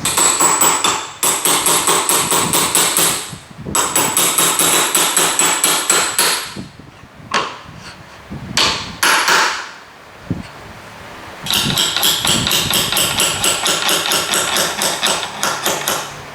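Rapid runs of hammer strikes, about five a second. The runs go on for a few seconds at a time, and a broken stretch in the middle holds only a few separate blows.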